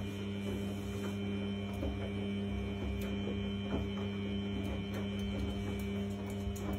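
A steady, unchanging low electrical hum, with a few faint soft clicks over it.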